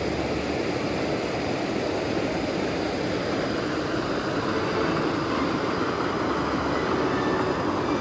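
Steady rushing of a small stream's flowing water, an even noise without pauses.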